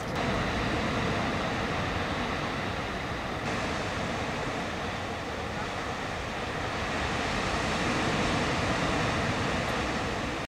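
Sea surf breaking and washing up a sandy beach: a steady rush of waves that swells a little louder toward the end.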